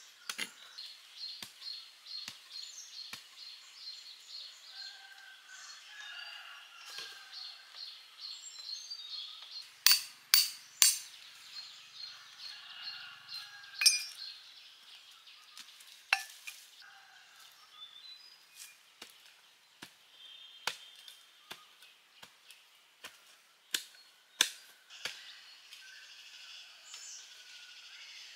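Birds chirping and twittering, with scattered sharp clicks and knocks. The loudest knocks come as three in quick succession about a third of the way in, followed by another shortly after.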